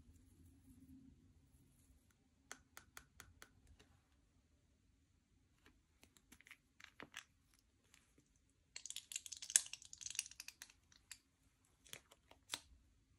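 Slime being worked by hand, giving off scattered sharp sticky clicks and pops. A denser run of crackling comes about nine seconds in.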